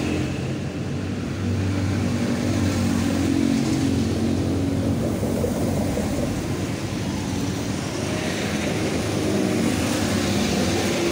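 Steady engine hum with a slightly drifting pitch, like a motor vehicle running nearby.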